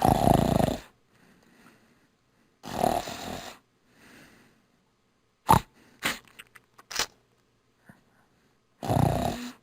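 Snoring: three loud snores, each under a second long, at the start, about three seconds in and near the end, with quieter breaths between them and a few short sharp snorts in the middle.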